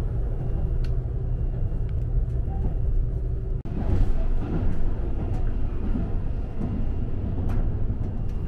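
Steady low rumble of a Seibu Railway 001 series Laview limited express train running on the line, heard from inside the passenger cabin, with a few faint clicks. The sound drops out briefly about three and a half seconds in, then the rumble resumes.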